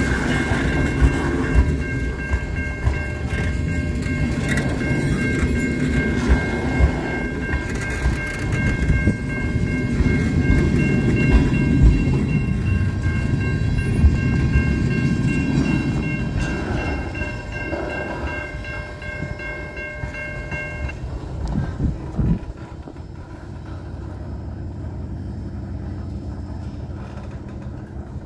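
Freight cars rolling past at a grade crossing: a low rumble of wheels with clacks and knocks over the rail joints. Over it the crossing's warning bell rings steadily and cuts off about three quarters of the way through, once the last car has cleared. The rumble then fades as the train moves away.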